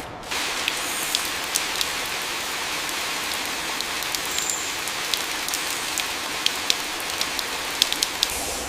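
Steady hiss of falling rain, dotted with scattered sharp drop ticks, starting suddenly just after the start.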